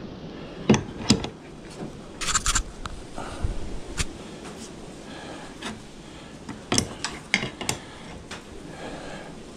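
Scattered clicks and knocks with some scraping as a large adjustable wrench is worked on a car radiator's fittings. The wrench is a poor fit on them.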